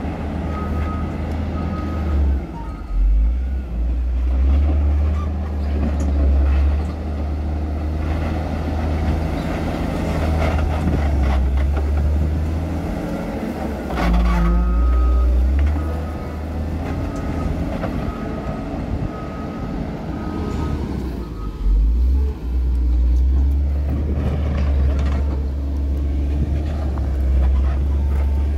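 Caterpillar 140M motor grader's diesel engine working under load, the low rumble swelling and easing as the machine moves earth with its blade. A reversing alarm beeps steadily at the start and again for several seconds through the middle.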